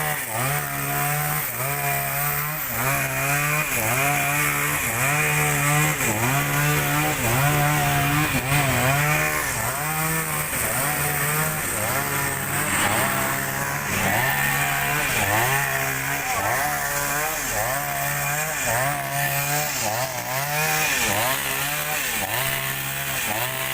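Chainsaw cutting up a fallen tree trunk, its engine note dipping and rising again over and over, a little more than once a second, as the chain bites into the wood.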